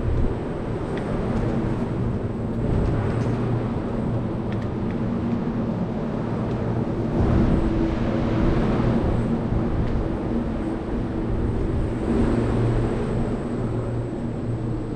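Scooter riding over a concrete garage floor: a steady rumble of the wheels with a constant low hum underneath.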